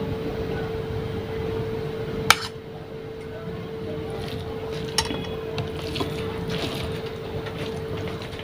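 Rice and fish curry being mixed by hand on a plate, with a sharp clink of a metal spoon against the plate about two seconds in and a lighter one near five seconds. A steady low hum runs underneath.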